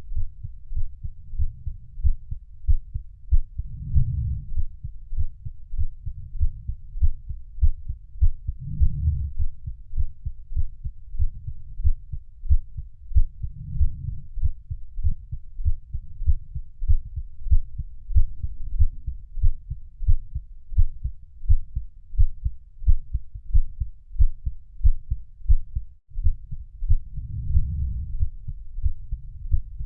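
Heartbeat sound for sleep, beating deep and muffled in a steady, even rhythm, with a low swell every four to five seconds.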